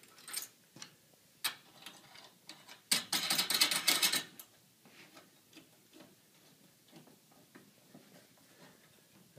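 Metal mounting hardware of a panel antenna's pipe bracket clicking and clattering as nuts and clamp parts are fitted by hand onto the threaded studs. A few sharp clicks come first, then a denser metal rattle lasting about a second and a half, then only faint light ticks.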